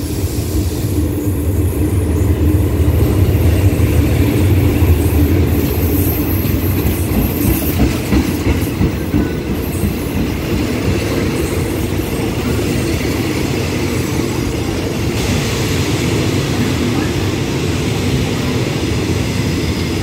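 Diesel-hauled passenger train pulling slowly into the station. The locomotive's engine rumbles as it passes, loudest about four to five seconds in, then the coaches roll by with wheels clacking over the rail joints.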